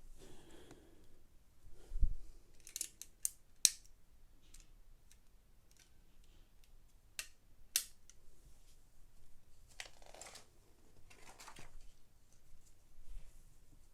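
Plastic Lego pieces being handled and clicked together: a run of sharp separate clicks, a low thump about two seconds in, and two short rustles later on.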